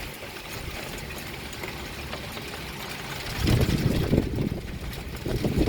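Thunder rumbling during a winter thunderstorm: a deep, irregular rumble swells in about three and a half seconds in, over a steady low background.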